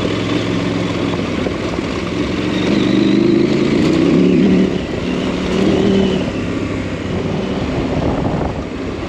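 KTM adventure motorcycle's engine running under load on a dirt road. The revs climb and grow louder from about a third of the way in, drop off sharply near the middle, then swell briefly again as the throttle is worked.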